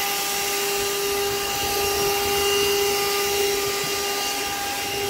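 Shark handheld vacuum cleaner running steadily: a constant motor whine over a rushing air hiss.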